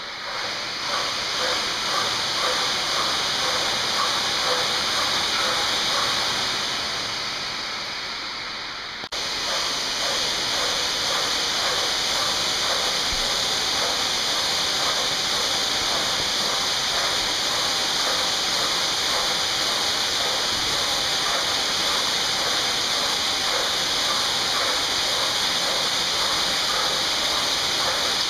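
Kayak ergometer running under hard paddling: a steady rushing hiss from the spinning flywheel with a faint rhythmic pulse of the strokes. The level sags a few seconds in and jumps back abruptly about nine seconds in.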